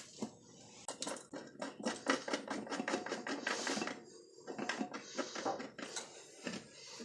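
Runs of quick metallic clicking and clinking as bolts are fitted and tightened to fasten a mower-deck spindle housing to the deck.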